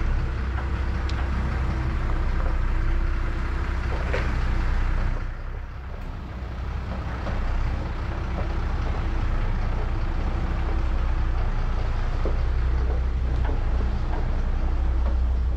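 Truck engine running steadily with a low hum, briefly quieter about five seconds in, with a few faint scattered knocks.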